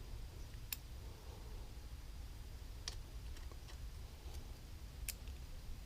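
A few faint, sharp clicks of small metal engine parts being handled, spaced a couple of seconds apart, over a low steady hum.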